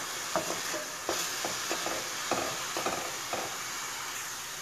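Chopped green onions sizzling in hot oil in a stainless steel pan, with a wooden spatula stirring and scraping against the pan in a series of short strokes that stop about three and a half seconds in.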